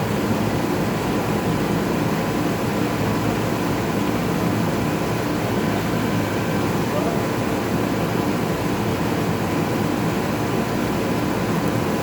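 Steady low rumble of a heavy vehicle's engine running, with no change in pitch or level.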